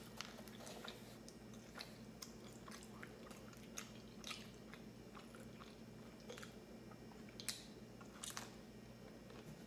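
Faint close-miked mouth sounds of a person chewing pizza, with scattered small clicks and crunches, and a bite into the crust near the end, over a low steady hum.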